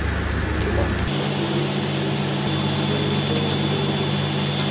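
Pork slices sizzling on an electric tabletop grill, a steady crackling hiss under a low steady hum that shifts abruptly about a second in.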